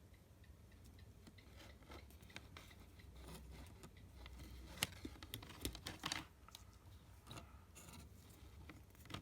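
Faint, irregular small clicks and taps while a component is hand-soldered onto a circuit board, with a brief cluster about five to six seconds in.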